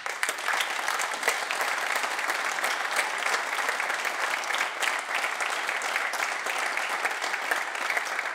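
Audience applauding, steady clapping from a crowd of people.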